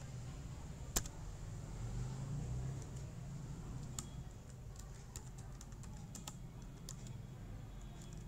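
Computer keyboard being typed on in sparse keystrokes: a single sharp key about a second in, another at four seconds, then a quicker run of keys a few seconds later. Under the keys runs a steady low hum.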